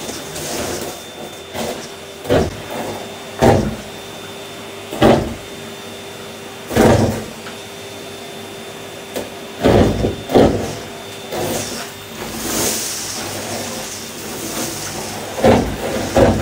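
Henry canister vacuum cleaner running with a steady motor whine while its floor tool is pushed over carpet, sucking up crumbled blue debris. About eight short, louder surges break the steady sound as pieces are pulled into the nozzle and rattle up the hose.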